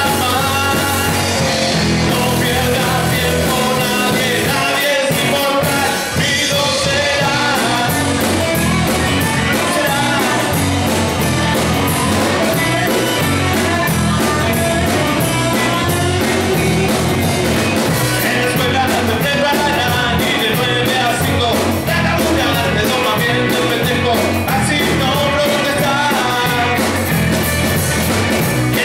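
Live rock band playing: electric guitar and electric bass over a steady beat, with a man singing.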